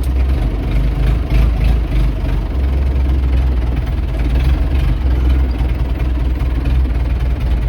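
Tractor engine running steadily at low revs while the tractor is inched back into a parking spot.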